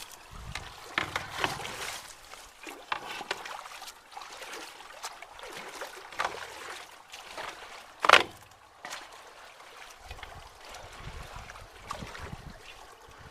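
Shallow ditch water splashing and sloshing in irregular bursts as a stick and debris are pulled from a blocked culvert, over a faint steady trickle. One sharp sound about eight seconds in is much louder than the rest.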